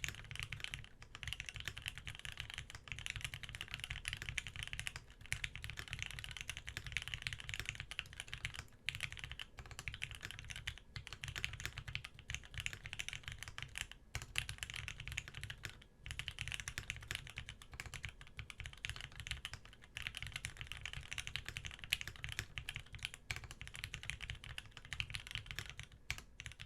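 Fast continuous typing on an E8.5 custom mechanical keyboard, top-mounted with an aluminium plate, lubed Gateron Ink linear switches and GMK keycaps: a dense stream of keystrokes broken by brief pauses every few seconds.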